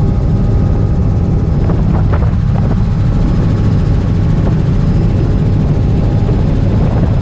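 Small helicopter's engine and rotor running steadily in flight, a loud constant low drone with a faint steady whine above it, heard from inside the cabin with the door open.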